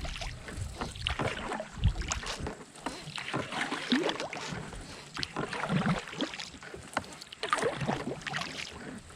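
Kayak paddle strokes dipping and splashing in river water, irregular and uneven, with a few short bird calls.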